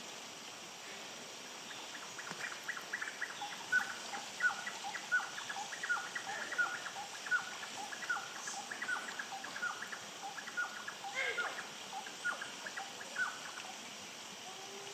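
A woodpecker calling: a long run of short, evenly repeated call notes, about two a second, starting about two seconds in and stopping shortly before the end.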